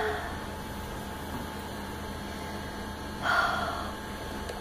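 Steady low room hum with a single short breathy puff from a person about three seconds in, a sharp exhale through the nose.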